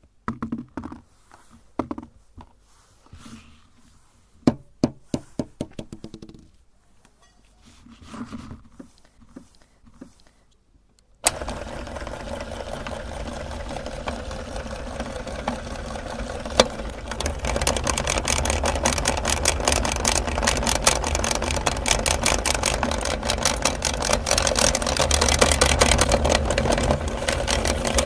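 Rubber bouncy balls dropping and bouncing on a hard surface: scattered clicks and knocks, one run of bounces coming quicker and fainter. About eleven seconds in, an electric meat grinder switches on suddenly and runs steadily with a fast rattle. It gets louder a few seconds later.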